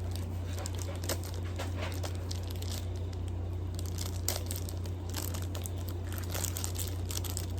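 Packaging being opened by hand: irregular crinkling, crackling and tearing, over a steady low hum.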